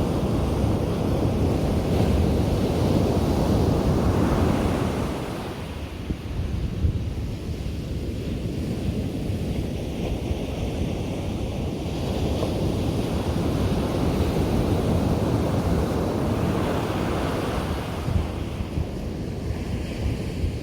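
Ocean surf breaking on a beach: a continuous wash of waves that swells and eases in slow surges, with wind buffeting the microphone.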